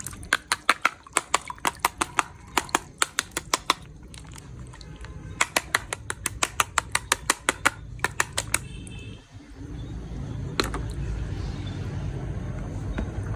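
Rapid sharp clicking, about six clicks a second, in two runs of a few seconds each, followed by a single click and a steady low rumble.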